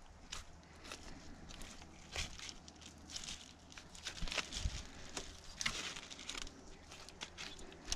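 Knife cutting and scraping meat off a deer's leg bone by hand: irregular short scrapes, crinkles and small clicks as the meat and the sheet under it are handled.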